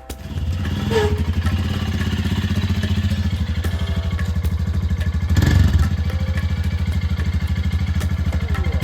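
Royal Enfield Himalayan's single-cylinder engine running with a steady pulsing beat, swelling louder briefly a little past the middle.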